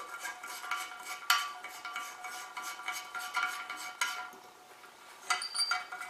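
Fingers spinning the plastic handle nut off a toilet's flush-handle shaft: a run of light clicks and taps against the empty porcelain tank, which rings briefly after each, then a second cluster of clicks near the end.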